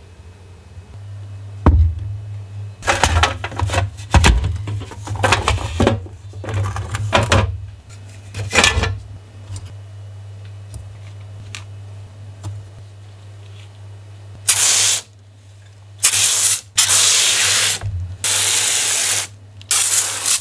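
Clock parts clattering and knocking as they are set into a plastic tub, then foam cleaner sprayed in about five short, loud hissing bursts that start and stop sharply. A steady low hum runs underneath.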